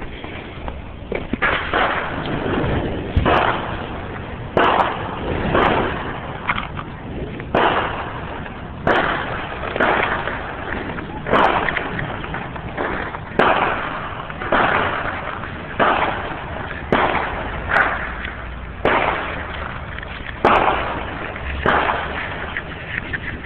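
Fireworks going off one after another, about one bang a second, each sharp crack fading out over about a second.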